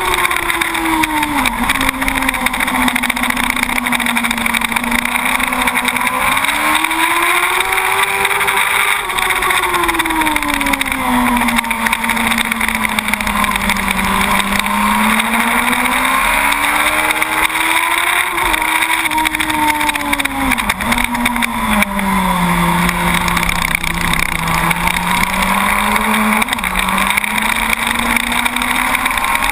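Inline-four engine of a 2006 Yamaha YZF-R1 SP sportbike running hard on track, its pitch climbing and falling slowly several times as it accelerates and slows through corners. A steady rush of wind noise runs under it.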